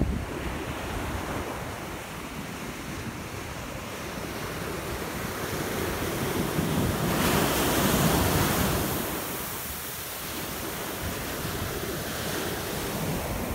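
Ocean surf breaking on a shore, a steady wash that swells to its loudest about seven to nine seconds in, with wind buffeting the microphone.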